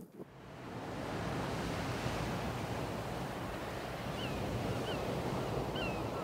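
River water rushing past, a steady even noise, with geese faintly calling a few times in the second half.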